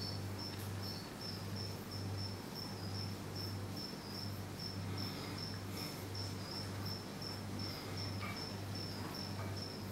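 Insect chirping in a steady run of short, high chirps, about three a second, over a low pulsing hum.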